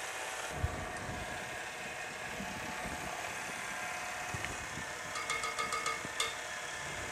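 KitchenAid Artisan stand mixer running steadily, its beater churning cake batter in a glass bowl. About five seconds in, a quick run of light clinks from a metal spoon scraping a small glass baby-food jar.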